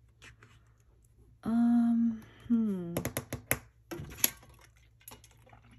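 A woman's brief wordless vocal sound, a hum held on one pitch and then a shorter one falling in pitch, followed by a quick run of light clicks and taps.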